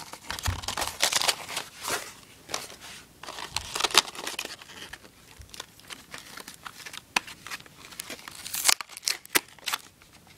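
Gift wrapping being crinkled and torn by hand as a present is unwrapped: irregular rustles and crackles, with a sharp rip about four seconds in.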